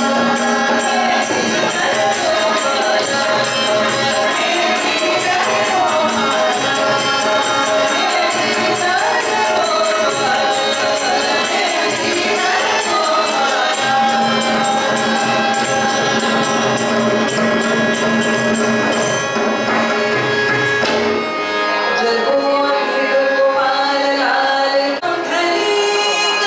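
Carnatic devotional singing by female voices over a steady sustained drone, with a quick, steady jingling percussion beat. About three-quarters of the way through the percussion stops and the voices carry on with long held notes.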